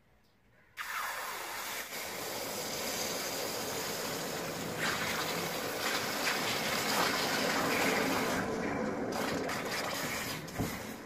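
Red-hot steel axe head quenched in a tub of water, the water hissing and boiling violently against the hot metal as the steel is hardened. The sizzle starts suddenly about a second in, swells louder about halfway through and fades near the end.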